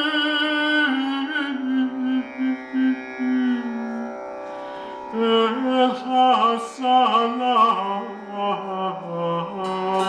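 A man singing a slow, ornamented melody into a microphone, with long wavering held notes stepping down in pitch and quick turns around each note in the middle. Near the end, plucked notes on a long-necked lute come in.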